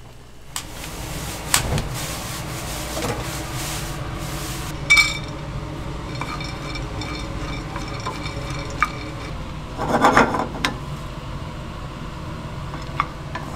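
Kitchen utensils and cookware being handled, with a few sharp knocks and clinks. The loudest knock comes about five seconds in, and a short run of clatter about ten seconds in, over a steady kitchen background.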